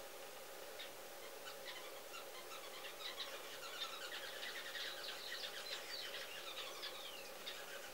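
Small birds chirping and twittering, busiest in the middle, with a few short falling whistled notes, over a faint steady hum.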